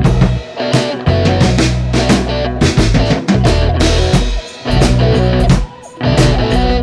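Rock music with guitar and drum kit, with a few brief drops in level.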